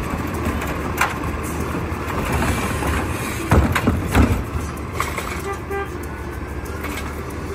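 Automated side-loading garbage truck running steadily while its hydraulic arm lowers the emptied recycling cart back to the curb, with a few knocks and a cluster of heavier thumps about three and a half seconds in as the cart is set down. A brief set of short tones sounds near the end.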